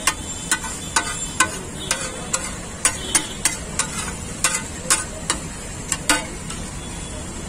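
Metal spatula clacking and scraping on a flat steel tawa, about sixteen sharp strikes at two or three a second, as chicken gizzards and liver are chopped and stirred in gravy. Frying goes on underneath, and the clacking stops about six seconds in.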